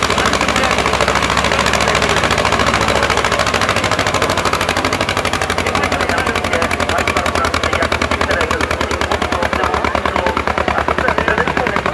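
Tractor engine running loud and close, with a rapid, even exhaust beat and a low steady drone.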